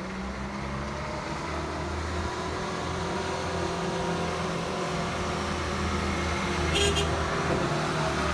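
Mitsubishi light flatbed truck driving slowly toward the listener, its engine running steadily and growing louder as it nears. A brief high hiss comes about seven seconds in.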